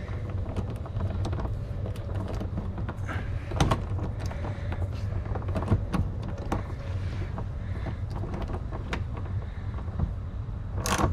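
Hand ratchet turning a 10 mm bolt on a car's underbody panel: scattered sharp clicks and small metal knocks, then a quick run of louder clicks near the end, over a steady low hum.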